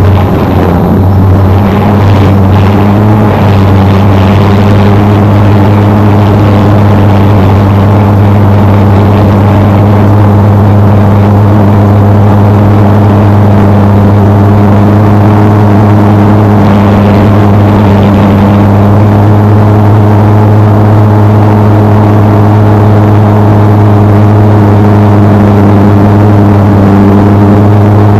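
Camera drone's motors and propellers running steadily: a loud, constant hum.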